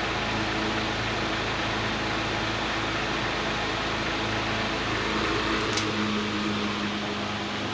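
1970s Toastmaster 15-inch box fan running on a bare floor, its steady whir carrying a deep rumble from the fan vibrating against the floor. A little past halfway a click of the speed switch comes and the deep rumble drops away as the hum settles to a lower speed.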